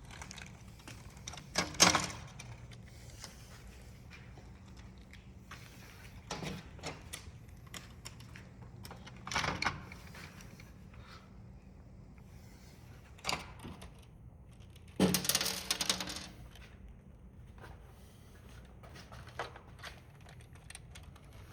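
Plastic parts of a disassembled printing calculator being handled and moved about: scattered clicks, taps and rattles, with a louder cluster of knocks and rattling near the end.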